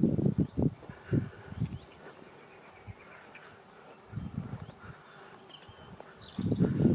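An insect trills steadily at one high pitch, cricket-like, the whole time. Over it come low thuds and rustles at the microphone: loudest in the first two seconds, briefly around four seconds in, and building again near the end.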